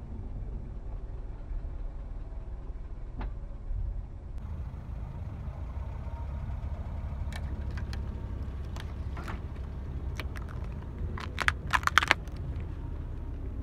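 A car running with a steady low rumble as its tyre creeps over asphalt. Scattered sharp cracks follow, then a quick cluster of loud cracks and crunches about eleven to twelve seconds in, as the tyre crushes disposable foam cups full of liquid.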